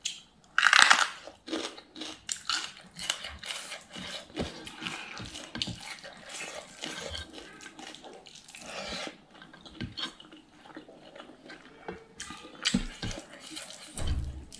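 Close-miked eating sounds: wet chewing and lip smacking on a mouthful of food, a dense run of sharp clicks and smacks, loudest about a second in.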